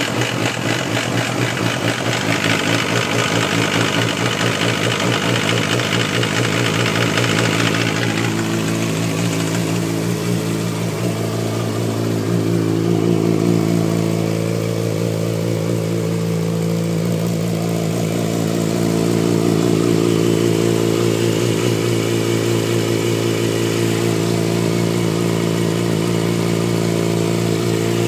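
Yamaha R6's inline-four engine running steadily just after its first start on fresh oil, with a higher hiss-like edge over the first eight seconds or so that then fades, leaving a lower, even idle.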